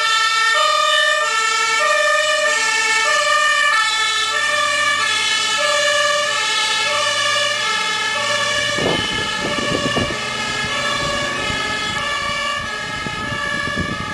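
Dutch fire engine's two-tone siren sounding a steady high-low alternation, each tone lasting a little over half a second, fading slightly as the truck moves away. Irregular low rumbling gusts join from about two-thirds in.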